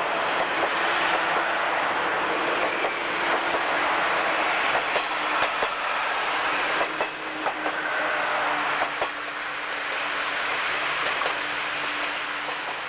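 KiHa 58 series diesel railcars running past close by. A steady diesel engine drone mixes with the clicking of wheels over rail joints, and the sound fades in the last few seconds as the train draws away.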